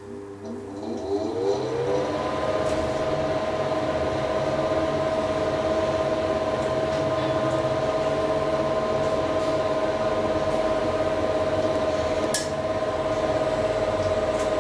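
Hydraulic elevator's pump motor starting with a rising whine that settles over about two seconds into a steady hum while the car travels. A single sharp click near the end.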